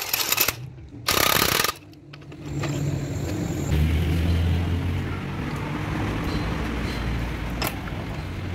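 Electric impact wrench run in two short bursts on the transmission's bell-housing bolts, then a steady low engine hum takes over for the rest.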